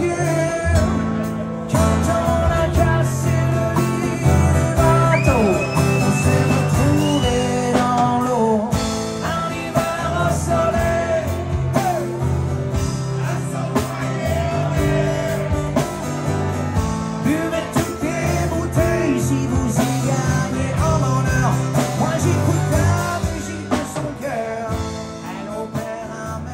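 Live band playing a song: a man singing with acoustic guitar, bass and drums. The music fades out near the end.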